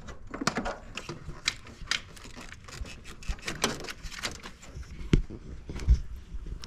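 Irregular clicks and knocks of hand tools and car parts being handled during work on the car, with two heavier thumps about five and six seconds in.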